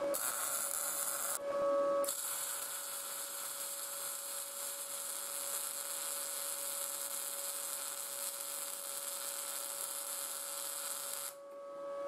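Wire-feed (MIG) welding arc crackling and hissing steadily on steel: a short weld in the first second, a brief stop, then one long continuous bead that cuts off about eleven seconds in. A faint steady hum sits underneath.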